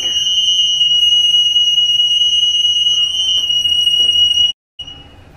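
Lift emergency alarm sounding one continuous, loud, high-pitched tone while the alarm button is held down in a stuck lift. It cuts off suddenly about four and a half seconds in.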